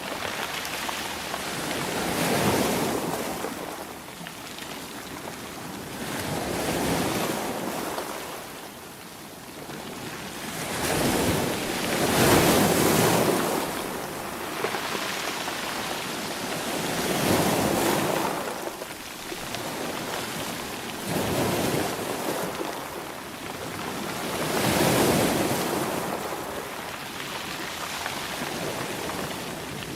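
Ocean waves breaking and washing on the shore in repeated swells, each rising and falling over a few seconds, the strongest about twelve seconds in.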